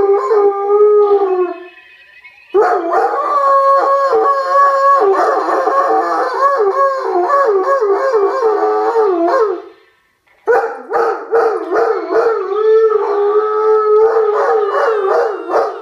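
Irish wolfhound howling in long, wavering howls, in three stretches broken by short pauses about two seconds in and about ten seconds in.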